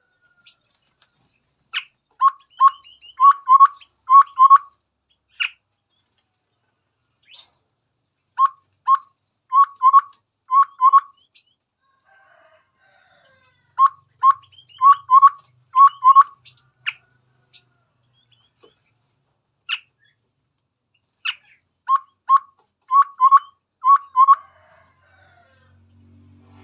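Chestnut-rumped babbler singing in four phrases, each a quick run of five to seven short whistled notes, separated by pauses of a few seconds, with a few single sharp notes in between.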